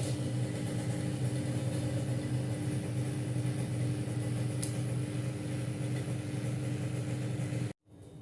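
A small electric motor-driven machine running with a steady low hum, cutting off suddenly near the end.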